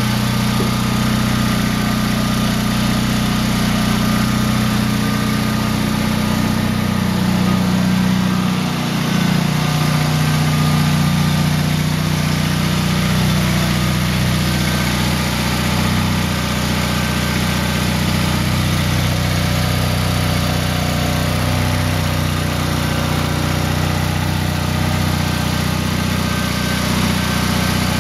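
A Honda HT3813 lawn tractor's 13 hp two-cylinder liquid-cooled engine running steadily, just after starting. Its speed drops slightly about nine seconds in, then holds.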